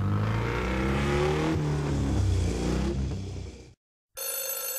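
Motorbike engine sound effect revving and pulling away, its pitch wavering, then dying away about three and a half seconds in. After a moment of silence, a phone starts ringing with a steady electronic tone near the end.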